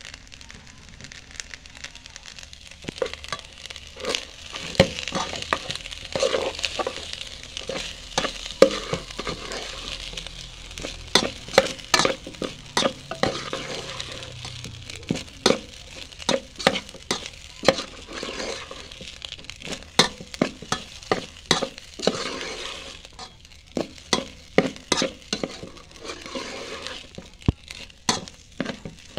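Fried rice sizzling in a pan while a metal spoon stirs and tosses it, with frequent sharp, irregular clacks of the spoon against the pan over a steady frying hiss.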